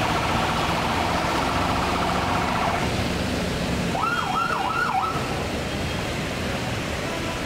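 Electronic siren sounding over steady street traffic noise: first a fast warbling tone for about three seconds, then three quick up-and-down wails about four seconds in.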